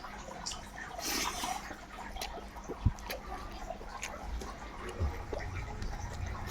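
Close-up eating sounds: wet mouth clicks of chewing, with a short noisy rush about a second in and a single dull thump near the middle.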